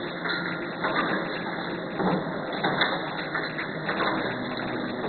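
Three-row plastic cup automatic packaging machine running: a steady mechanical clatter with a louder stroke about once a second.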